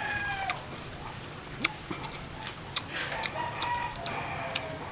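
Chickens calling, with a rooster crowing, one held call about three seconds in, over scattered small clicks and smacks of eating with the hands.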